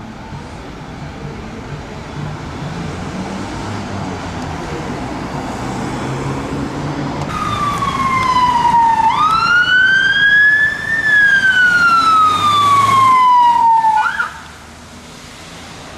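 Emergency-vehicle siren on a fire brigade USAR search-dog van responding, a slow wail that falls, rises and falls again in pitch, then cuts off abruptly with a short chirp. Before it comes in, vehicle engine and traffic noise builds.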